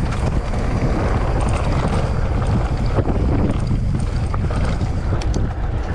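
Wind buffeting the camera microphone on a mountain bike rolling down a dirt trail, with a steady rumble from the tyres. A few light rattles come near the end.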